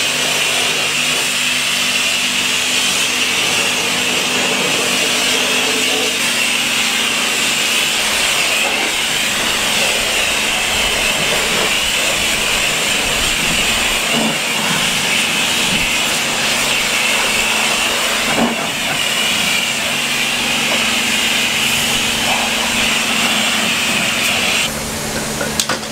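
High-pressure water spraying from a self-service car wash wand onto a car body, a loud, steady hiss over a steady low hum, during the final rinse. The spray shuts off near the end.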